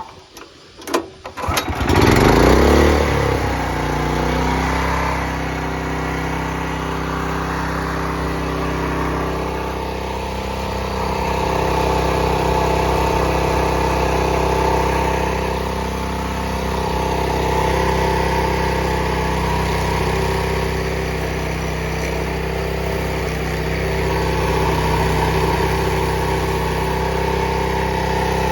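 Engine-driven high-pressure washer's small engine being pull-started: a few quick pulls, the engine catching about two seconds in, then running steadily with slight rises and dips in level.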